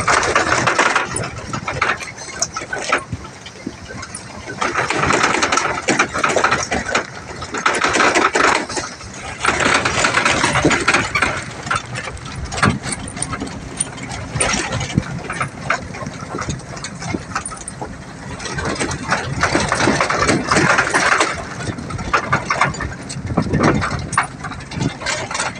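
Truck running downhill, its engine noise mixed with rattling, swelling loud several times and easing off in between.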